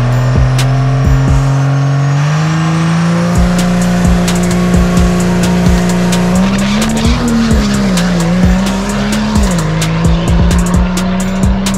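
Cummins-powered diesel drag truck revving on the starting line, its engine pitch stepping up in the first few seconds. About six seconds in it launches, and the engine pitch wavers up and down with tyre noise as it pulls away.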